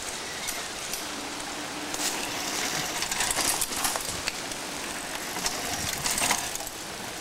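Mountain bikes riding past on a dirt trail strewn with leaves: tyres crunching and the bikes rattling and clicking. It is loudest in the middle and again near the end, as a rider passes close.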